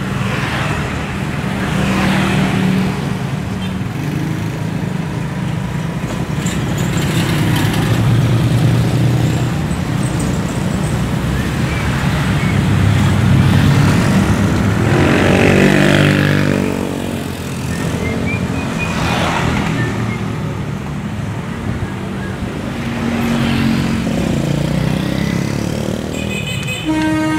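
Road traffic with large vehicle engines running and passing. One engine climbs in pitch as it speeds up about halfway through. A multi-tone tooting horn starts right at the end.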